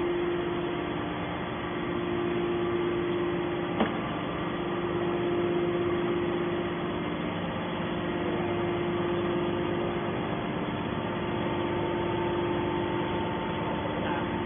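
Hydraulic aluminium can baler's power unit running with a steady hum, with one sharp click about four seconds in.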